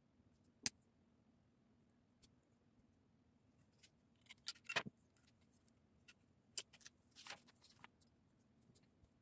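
Plastic Lego pieces being handled and pressed together: a sharp click under a second in, then little clusters of clicks and clatter around the middle and near the end.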